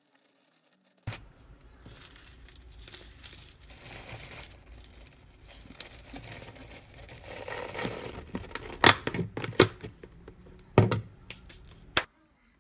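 Dry sheets of seasoned laver crinkling and rustling as they are pressed down into a plastic container, followed by several sharp snaps as the container's clip-lock lid is latched shut.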